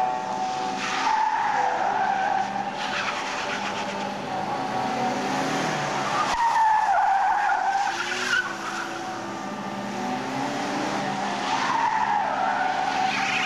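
Austin Montego saloons being stunt-driven in tight spins and handbrake turns. The tyres squeal loudly three times: about a second in, in the middle, and near the end. Between the squeals the engines rev, rising and falling in pitch.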